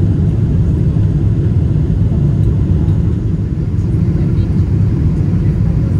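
Steady low rumble of a Boeing 777-200 airliner heard from inside the passenger cabin: engine and airflow noise.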